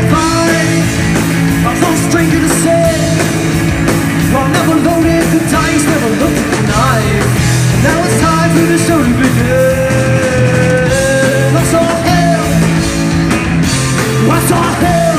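A live rock band playing loud: electric guitar, electric bass and drum kit together, with sustained melodic guitar notes over steady drumming.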